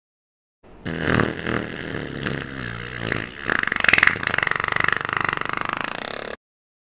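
A long human fart: a rough, sputtering sound that starts about half a second in. It turns into a rapid buzzing flutter in its second half, is loudest around the middle, and cuts off abruptly after nearly six seconds.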